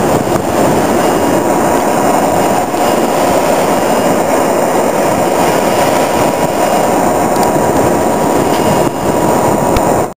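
Loud, steady machinery noise of a working drilling rig, with a faint steady whine running through it.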